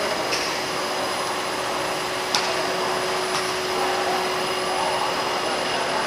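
Teflon (FEP) wire extrusion line running: a steady machine whir with a constant hum-like tone, broken by a few light clicks, one sharper just over two seconds in.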